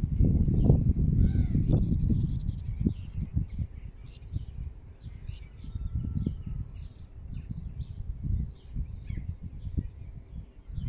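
Several small songbirds chirping and twittering in quick, overlapping phrases, over a low, gusty rumbling that is strongest in the first couple of seconds.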